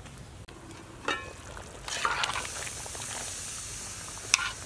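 A pot of curry bubbling at a simmer, with a steady hiss from about two seconds in, while a metal spoon stirs it and clinks once sharply against the pot near the end.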